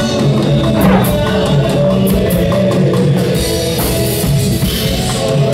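Live band music with a drum kit and guitar playing a steady beat.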